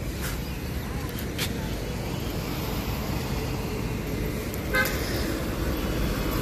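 Road traffic noise, steady, with a single short vehicle horn toot about five seconds in.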